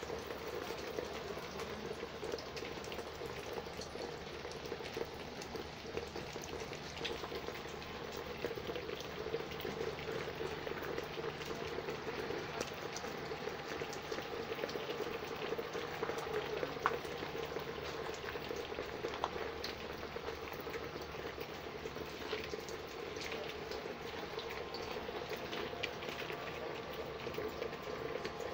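Water trickling and splashing down inside PVC hydroponic towers, a steady bubbling wash dotted with small drips.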